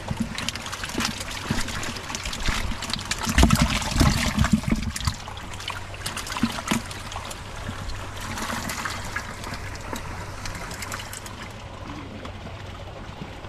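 Shallow water splashing, trickling and dripping as a round woven cane fish trap is worked and lifted in a muddy channel, heaviest about three to five seconds in, then settling to lighter sloshing.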